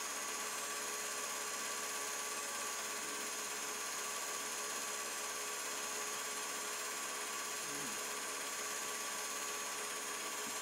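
Steady hum and hiss of a running movie projector, with a few constant whining tones and no change in level.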